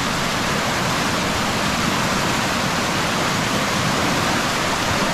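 Strong, fast-flowing muddy floodwater rushing past in a steady, unbroken rush of water noise.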